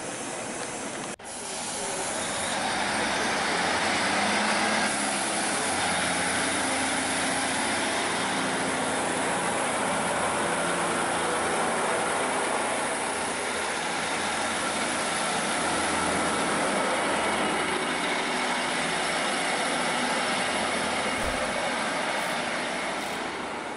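Class 156 diesel multiple unit pulling away from the platform, its underfloor diesel engines running steadily under power, with a hiss over the top. The sound grows louder over the first few seconds.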